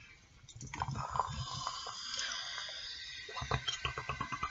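Coca-Cola poured from a can into a glass with a steady fizzing hiss, followed a second or so later by short clicks and slurps as it is sipped from the can.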